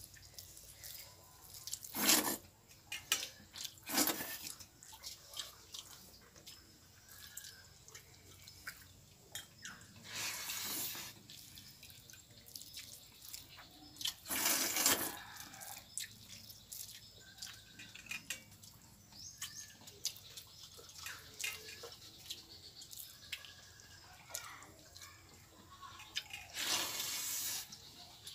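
Eating pakhal (rice in water) by hand from a brass bowl: fingers squelching and mixing the wet rice, with water dripping and small clicks, and a handful of louder wet bursts.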